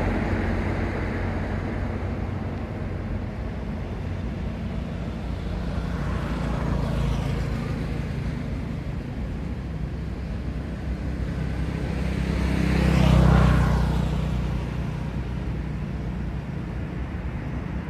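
Road traffic: a steady low engine rumble, with one vehicle passing faintly about six seconds in and another, louder, passing about thirteen seconds in.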